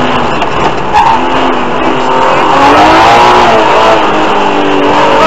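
BMW E36 325i's straight-six engine heard from inside the rally car: the revs dip about a second in, then climb under hard acceleration from about two seconds on, over loud road and tyre noise.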